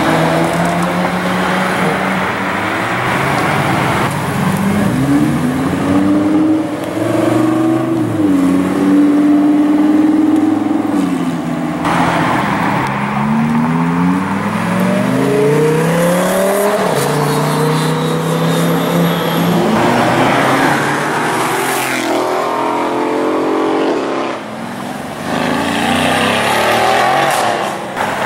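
A series of supercars accelerating away one after another, including a Ferrari 360 Spider and a Lamborghini Huracán Performante. Engine notes climb in pitch through several hard pulls and then fade as each car passes.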